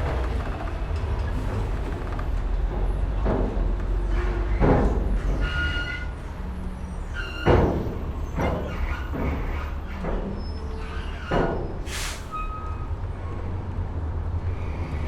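Ferry docking: a steady low engine rumble under a series of heavy clunks and creaks, the loudest clunk about halfway through, with a brief hiss near the end.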